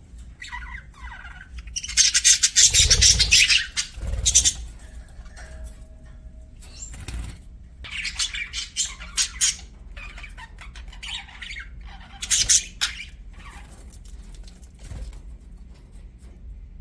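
Pet budgerigars chirping and chattering in bursts, with a loud, dense flurry about two seconds in and another about twelve seconds in, and a couple of low thumps during the first flurry.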